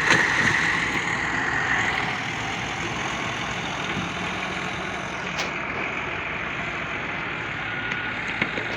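JCB backhoe loader's diesel engine running steadily, with a high whine in the first couple of seconds and a brief knock about five seconds in.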